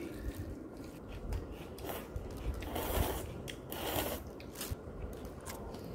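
Someone eating jjamppong noodle soup: short clicks of utensils against the bowl, and two longer noisy slurps of noodles about three and four seconds in.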